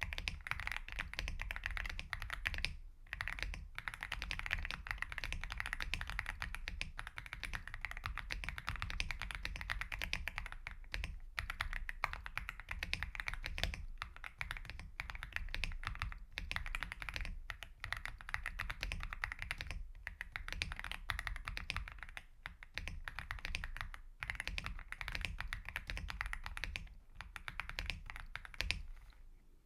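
Aula F99 mechanical keyboard with Leobog Nimbus V3 switches being typed on fast and continuously, a steady run of keystrokes broken by short pauses every few seconds.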